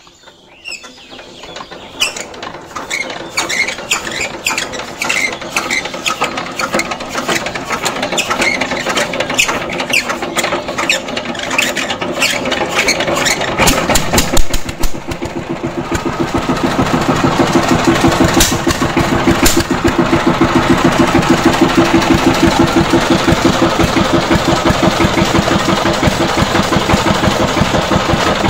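Single-cylinder diesel engine of a walk-behind power tiller being hand-cranked: a fast clatter that speeds up over the first half, then the engine catches about halfway through and settles into a steady, even running beat.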